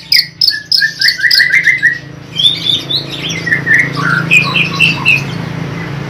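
Long-tailed shrike singing in fast, varied bursts: a rapid string of sharp high notes, then a quick run of lower notes, then a jumble of varied phrases that stops about five seconds in.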